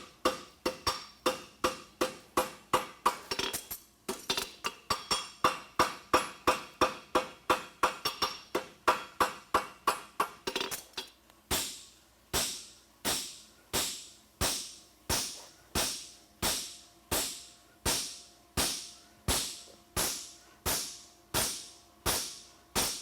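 Blacksmith's hammer striking a hot steel horseshoe bar on an anvil in a steady rhythm, about three blows a second. About eleven seconds in the blows slow to roughly one every 0.7 s and ring out brighter off the anvil.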